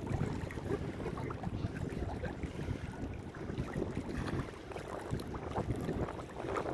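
Wind buffeting the microphone over a low, uneven rumble of harbour and ship noise; no horn sounds.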